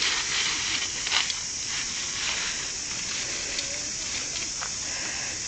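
Meat sizzling steadily on a hot barbecue grill, with a few sharp clicks of metal tongs against the grill plate.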